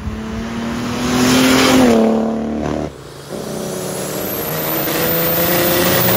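Mercedes OM606 3-litre straight-six turbo-diesel in a BMW E28 under hard acceleration: the engine note climbs to a loud peak about two seconds in, then drops. After a break near three seconds, it pulls hard again with the pitch rising steadily.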